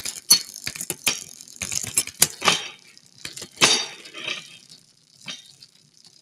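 Bicycle chain and gear mechanism clicking and rattling in irregular metallic clicks, thick at first and thinning out after about four seconds.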